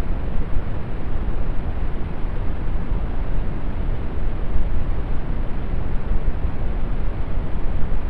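Steady brown noise: an even, deep hiss strongest in the bass and fading toward the treble, with no changes or separate events.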